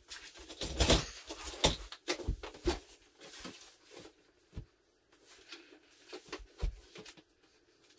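Irregular knocks, clicks and rustles of hands handling electronic drum kit hardware and cables at floor level, with a few louder thumps in the first three seconds.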